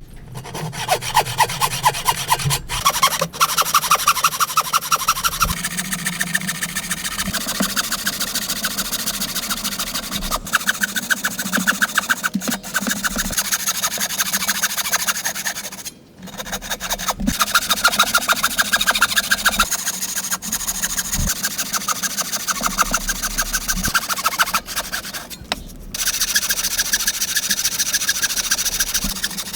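A hand tool worked back and forth on wood in fast, even, rhythmic strokes, with a few sudden breaks where the sound cuts off and resumes.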